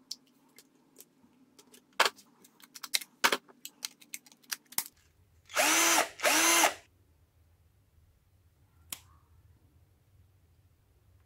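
Cheap 18 V Volvo-branded cordless drill run briefly twice, the motor whining up to speed and holding for about a second each time. Before it come a series of sharp plastic clicks and knocks from the battery pack and drill being handled, and one more click near the end.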